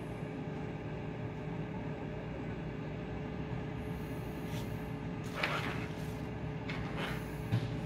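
Anycubic Photon resin 3D printer's Z-axis stepper motor running steadily as it raises the build plate out of the resin vat, a constant motor hum with a steady tone. A few short rustling noises come in the second half.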